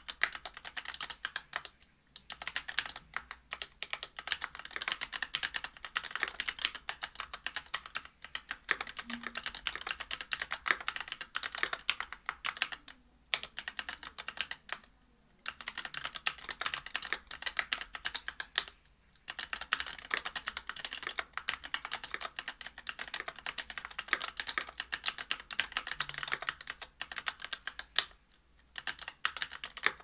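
Continuous typing on a Whale 75 mechanical keyboard fitted with stock, unlubed Infinity key Cow UHMWPE linear switches on a brass plate with GMK keycaps: a rapid run of key clacks broken by a few brief pauses.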